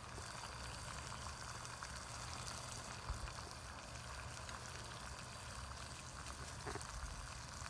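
Water at a rolling boil in a tea kettle on a wood-pellet hobo stove, with a faint, steady bubbling hiss and fine crackle.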